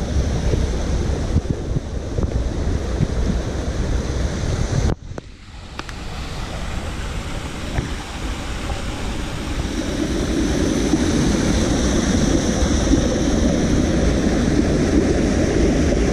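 Small forest stream rushing and splashing over rocks, growing louder in the second half, with wind rumbling on the microphone. The sound drops away abruptly about five seconds in, then builds back.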